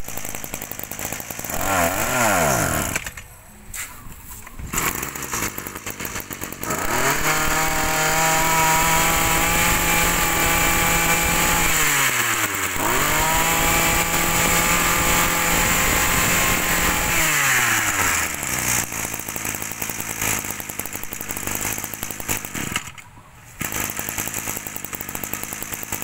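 Ryobi 23cc brush cutter engine started and run: a short burst about two seconds in, then idling, revved up to a steady high speed twice for about five seconds each, and settling back to idle with a brief dip near the end.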